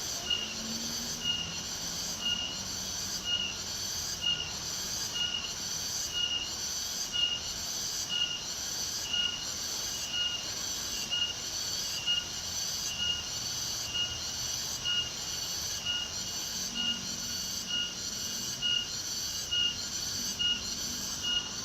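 Shrill insect song pulsing steadily, about two pulses a second.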